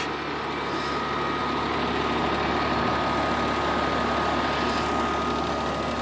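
A 3.5-ton Nordyne heat pump's outdoor unit running in cooling, its compressor and condenser fan giving a steady hum with a thin, faint high whine.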